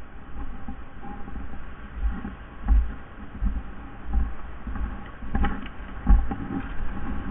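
Footsteps through dry grass, leaf litter and brush, picked up by a body-worn camera, with irregular low thuds from each step and a few sharper snaps.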